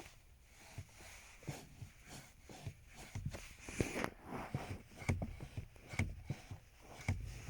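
Brake pedal of a Mitsubishi Outlander (GN0W) being worked, giving an abnormal noise: an irregular run of short knocks and clicks, some with a low-pitched note, about two a second. The maker's interim fix of a brake fluid change has done little to cure it.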